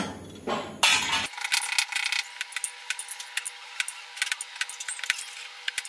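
Freshwater snail shells being handled and cracked on a wooden block: a few louder scraping crunches in the first second, then many small irregular clicks. A faint steady hum comes in about a second in.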